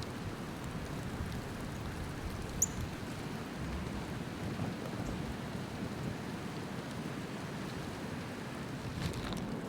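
Steady rushing hiss of a blizzard: wind and falling snow. About two and a half seconds in comes a single short, high chirp from a small bird.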